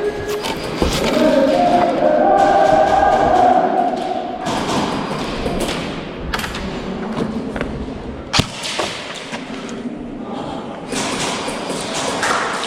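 Repeated thuds and sharp knocks. Held, sung-sounding tones run through the first four seconds, and one sharp crack stands out near the end of the eighth second.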